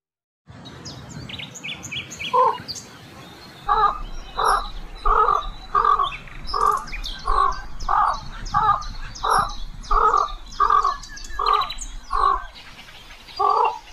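A bird giving a long series of harsh calls, about one and a half a second, starting a couple of seconds in, with small birds chirping high above it.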